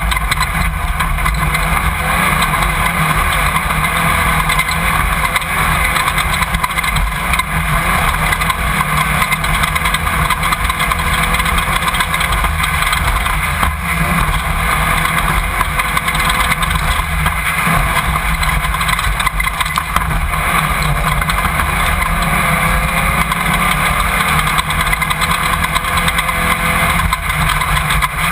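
Off-road race car running, heard from a camera mounted on board: a loud, steady roar of engine and vehicle noise with no breaks.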